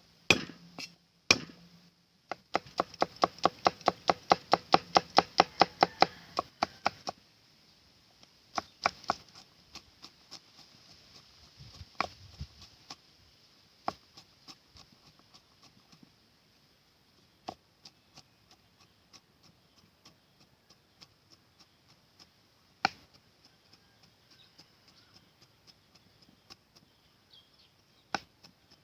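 Knife chopping on a wooden cutting board: a quick, even run of about four chops a second for several seconds, then occasional single knocks.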